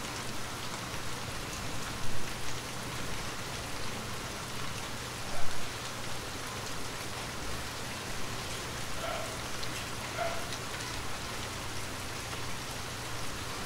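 Moderate rain falling on tree leaves: a steady patter and hiss, with a couple of louder drops about two and five seconds in.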